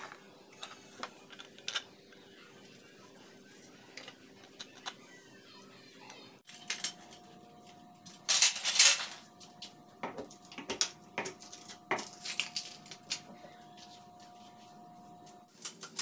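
Light clinks and knocks of hard objects being handled, with a louder rattle about eight seconds in.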